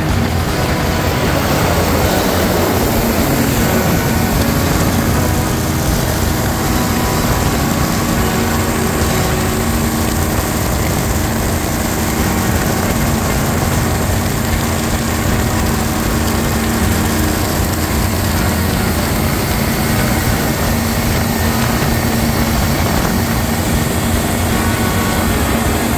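Jet boat's LS-swapped V8 engine running steadily at speed under load.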